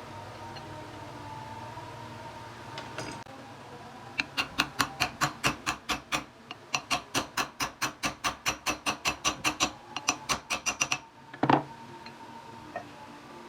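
A fast, even run of sharp clicks, about five a second, that keeps going for several seconds with one short break, followed by a single louder knock. A steady hum lies under it.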